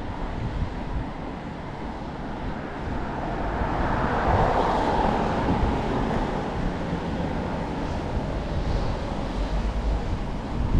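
Street traffic noise with wind buffeting the microphone. A passing vehicle swells and fades around the middle.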